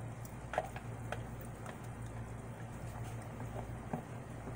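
Silicone spatula scraping and knocking against a blender jar and plastic pitcher as blended mango purée is emptied out: several light clicks and knocks, irregularly spaced, over a steady low hum.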